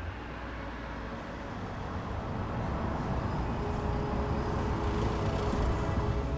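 A low rumbling noise, traffic-like, swells steadily over several seconds, with faint held tones joining about halfway, and cuts off suddenly at the end. It is a sound-design build across a scene change.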